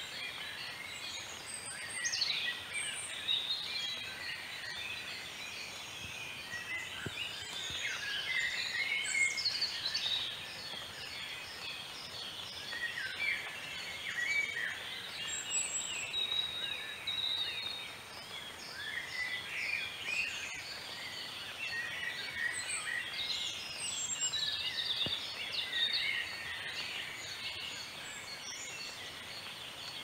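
Chorus of several wild birds calling at once: overlapping chirps, quick trills and whistled sweeps, continuous, over a steady outdoor background hiss.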